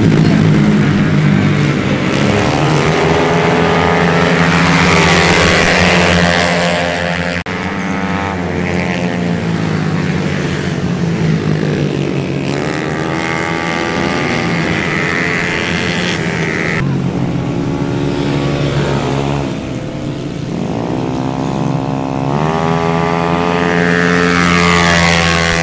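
Several racing automatic scooters running hard on a race track, their engine notes overlapping and repeatedly rising and falling in pitch as the bikes accelerate and pass. The sound changes abruptly twice.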